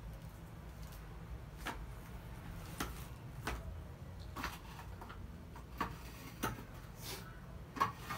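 Scattered light knocks and taps, about ten of them at irregular spacing, as packaged groceries (plastic milk packs, cartons and cans) are handled and set down on a tiled floor, over a low steady hum.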